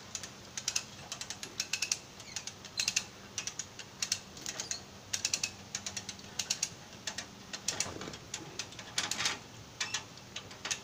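Hand-operated come-along ratchet puller being cranked, its pawl clicking in quick runs with each stroke of the lever as the cable is tightened under load.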